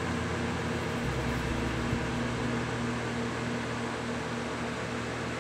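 Steady background room noise: an even hiss with a low hum underneath, and one faint tick about two seconds in.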